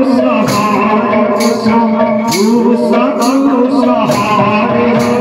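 Devotional sankirtan: a male lead singer singing a chant through a microphone, with barrel drums (mridanga) and hand cymbals keeping time in repeated sharp strokes.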